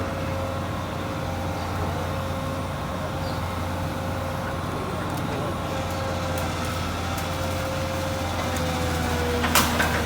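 Komatsu PC200 hydraulic excavator's diesel engine running steadily with a low drone and a thin steady whine. A sharp knock comes about nine and a half seconds in.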